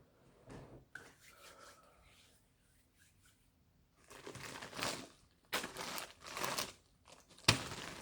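Packaging being handled, crinkling and rustling in several bursts over the second half, with one sharp knock near the end.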